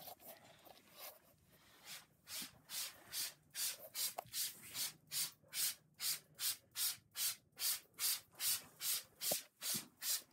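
Trigger spray bottle squeezed over and over, each pull a short hiss, about two and a half sprays a second, starting about two seconds in.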